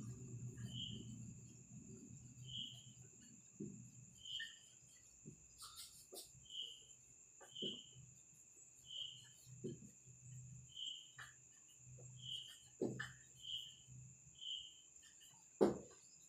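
Marker strokes and soft taps on a whiteboard, with faint chirping recurring every second or so over a steady high whine.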